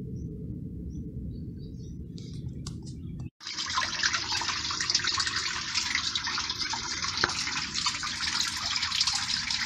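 Water rushing steadily from pool plumbing, starting suddenly after a brief cut about a third of the way in. Before it there is only a low rumble.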